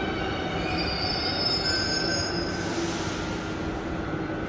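Israel Railways double-deck passenger train at the platform, its wheels squealing with several high, steady whining tones over a rumble. A short burst of hiss comes about two and a half seconds in.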